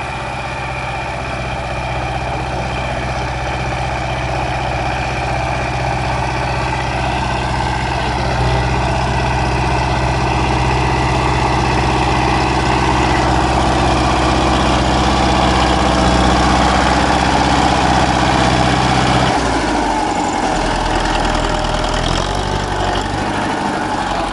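Belarus 510 tractor's diesel engine running steadily under load as it pulls a potato planter, growing a little louder as it comes closer. About nineteen seconds in the engine note drops suddenly.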